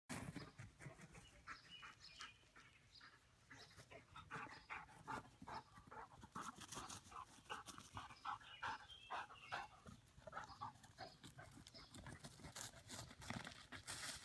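A dog panting quickly and faintly, a steady run of short breaths, several each second.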